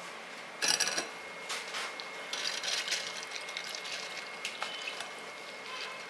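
Soaked split moong dal sliding wetly from a bowl into a stainless steel mesh strainer set over a glass bowl, with a sharp clatter of kitchenware just under a second in, then patchy splashy noise as the lentils are pushed out by hand to drain.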